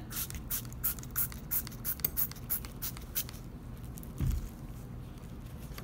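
Trigger spray bottle of Bar Keepers Friend cleaner squirted over and over onto a brass loom jack: a quick run of short sprays, several a second, for about three seconds. A single dull thump follows a little after four seconds in.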